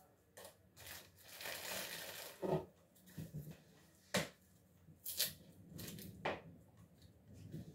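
Dry, papery garlic skins rustling and crackling as cloves are peeled by hand, with scattered sharp clicks and taps of handling at the table. A longer rustle runs from about one to two and a half seconds in.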